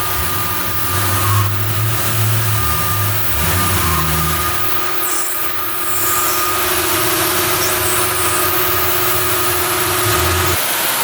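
Lathe motor running with a steady whine while a Delrin bar is turned to shape, the low rumble shifting as the cut loads it; the machine shuts off near the end.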